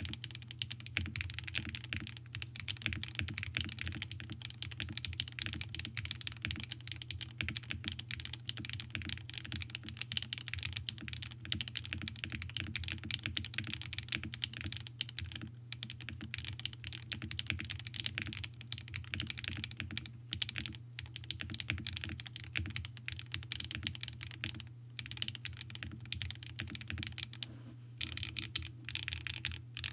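Continuous fast typing on a Bakeneko65 mechanical keyboard with HMX Cloud switches in an aluminium plate and GMK Tuzi clone keycaps: a dense stream of key clacks, with a couple of short breaks near the end.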